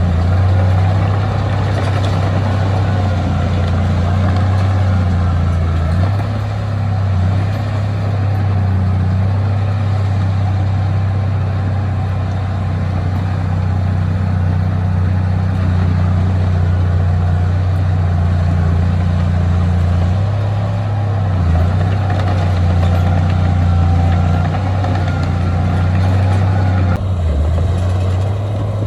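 Heavy diesel engine of earthmoving machinery running steadily under load, its low note dipping briefly a few times.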